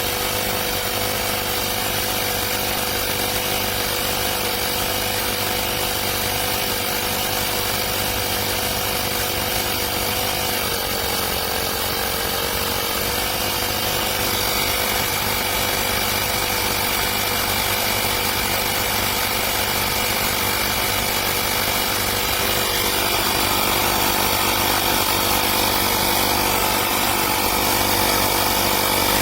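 AstroAI 12 V portable electric tyre inflator running steadily while it pumps up a car tyre, with a brief dip in its pitch about ten seconds in and a slight rise in loudness near the end.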